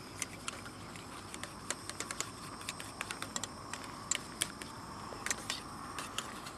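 A metal fork stirring thickening gravy in a small metal pot, making irregular light clicks and scrapes against the pot's sides and bottom, with a few sharper taps now and then.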